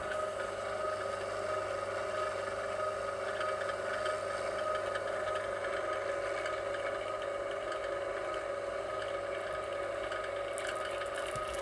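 Vevor electric wire stripper's motor running with a steady hum, with a few clicks and scrapes near the end.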